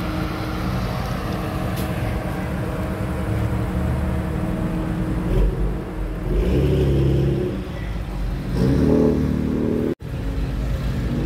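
BMW F80 M3's twin-turbo straight-six running at idle, then revved twice, the second rev about three seconds after the first. About a second before the end it cuts abruptly to another car's engine idling.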